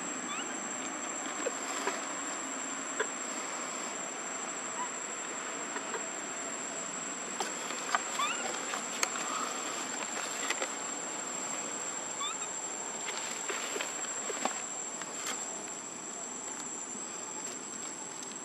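Insects droning with one steady high-pitched tone, over a faint outdoor hiss. A few sharp clicks and short rising chirps are scattered through, mostly in the middle.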